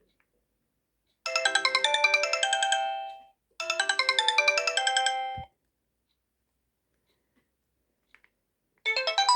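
Sony Ericsson Z610 mobile phone ringtone playing from its loudspeaker: a fast electronic melody in two bursts of about two seconds each with a short gap between them. After a few seconds of silence, another ringtone starts near the end.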